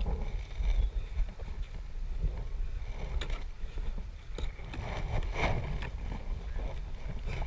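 Kayak on moving river water: a steady low rumble of water and wind on the action camera's microphone, with a few short splashes, the loudest about five and a half seconds in.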